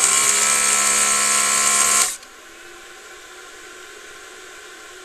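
Electric desoldering gun's vacuum pump running in one burst of about two seconds, sucking molten solder from a potentiometer's solder joints, then cutting off suddenly. A steady hiss continues underneath.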